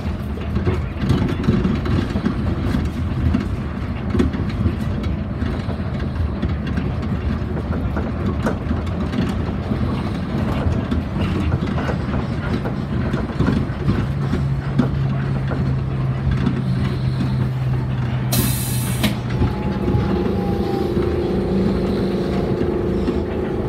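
Yamaman Yukarigaoka Line rubber-tyred people mover running along its concrete guideway, heard from the front of the car: a steady rumble. A humming tone comes in about two thirds of the way through, with a short sharp hiss near its end. Higher humming tones follow near the end as the train slows into a station.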